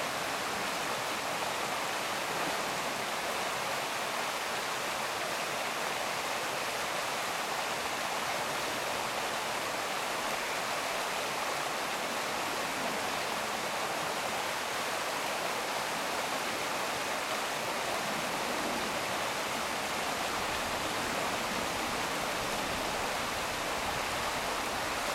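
Shallow rocky stream running over small rapids and riffles: a steady, unchanging rush of water.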